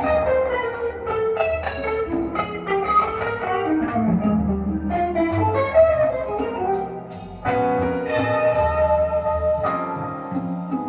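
Instrumental passage of a song, plucked guitar notes over a bass line, played back through a single-ended EL84 tube amplifier. A fuller chord section comes in about seven and a half seconds in.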